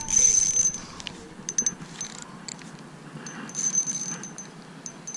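Spinning reel being cranked while a hooked fish is played: a thin high whir from the reel that comes and goes, with light metallic clicks and rattles, loudest in the first second.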